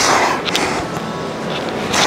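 A man's forceful exhales with the effort of heavy reps on a plate-loaded lat pulldown machine. One comes at the start and another at the end, about two seconds apart, with a light click about halfway.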